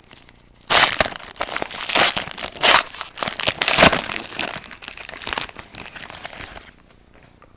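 A foil hockey card pack wrapper being torn open and crinkled by hand, in loud crackly bursts. It starts about a second in and stops shortly before the end.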